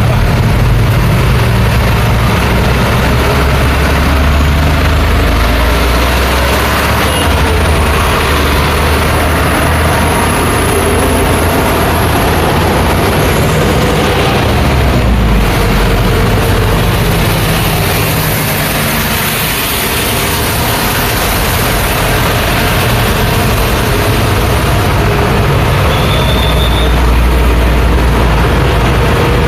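Busy street traffic: a steady, dense mix of vehicle engines and tyre noise, with a heavy low engine rumble from large vehicles that swells and eases as they pass.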